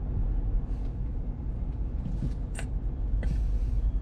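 Steady low rumble of a car's cabin, with a few brief rustles and a sharp click as a passenger settles into the back seat with plastic shopping bags.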